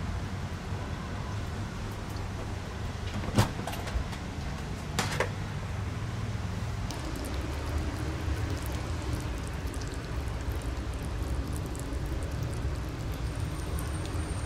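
Steady low rumble, with two sharp clicks about three and a half and five seconds in.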